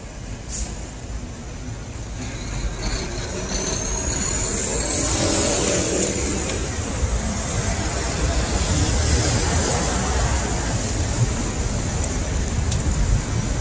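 City street noise of passing road traffic, a steady low hum that grows louder from about three to five seconds in, with a brief rising high whine in the middle.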